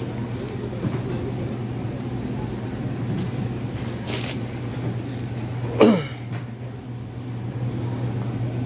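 Steady low hum of a supermarket's background, with a faint click about four seconds in and a short falling voice-like sound just before six seconds.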